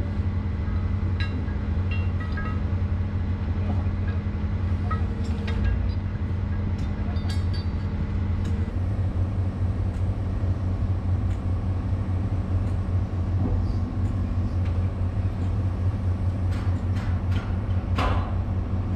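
Excavator's diesel engine running steadily, heard from inside the operator's cab, its hum changing a little about halfway through. Light metallic clinks come and go over it, with a sharper knock near the end.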